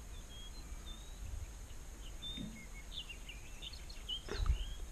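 Small birds chirping and twittering, many short high calls scattered through a faint, steady low background. A single dull thump comes near the end.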